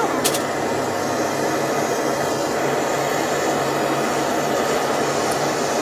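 Hand-held gas torch burning steadily, a continuous rushing hiss with a faint low hum as its flame heats metal scraps in a small steel tray. A brief high clink just after the start.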